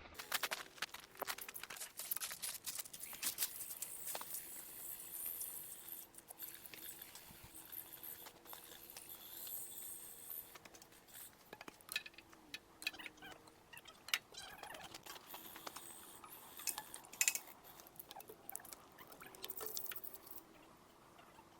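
Irregular light clicks and taps, scattered through the whole stretch, over a faint steady hum.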